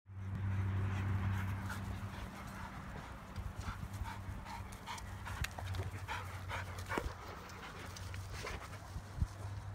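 Dogs panting as they run and play on grass, a string of short quick breaths and footfalls, over a steady low hum.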